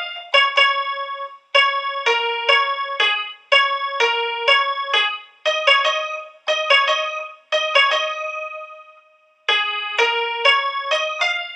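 Background music: a keyboard tune of quick struck notes in short phrases, each starting sharply and ringing away, with a longer fade about two-thirds through before it picks up again.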